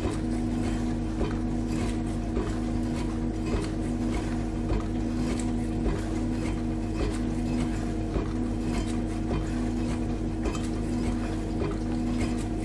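Dishwasher running through its wash cycle: a steady motor hum with water spraying and splashing inside the tub, and many small irregular knocks and taps as the spray hits the dishes.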